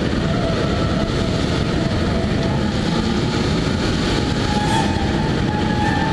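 Steady rumble of road and wind noise from a Peugeot 206 driving, picked up by a camera taped to its front bumper. A faint rising whine comes in near the end.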